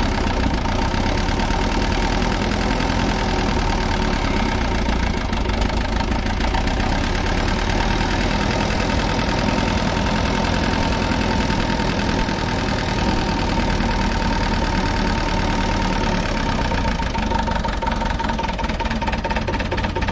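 Diesel engine of a 1969 Minneapolis-Moline U302 tractor running steadily.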